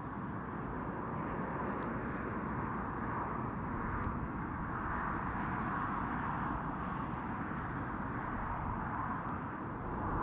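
Steady outdoor background rumble and hiss with no single clear source, slowly growing a little louder.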